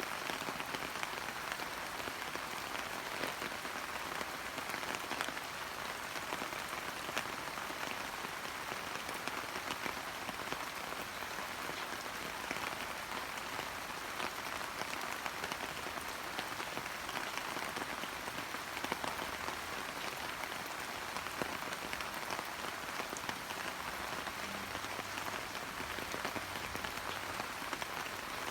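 Steady rain falling on hydrangea bushes, with many small drops ticking on the leaves.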